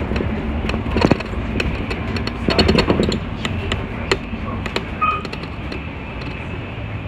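City bus driving, heard from inside the cabin: a steady engine and road rumble with frequent rattles and clicks from the interior fittings, clattering louder about a second in and again around the middle.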